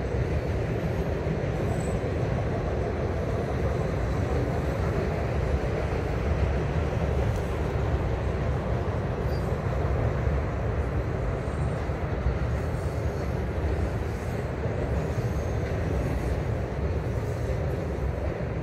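Autorack freight cars rolling across a steel truss bridge: a steady noise of wheels on rails with no let-up.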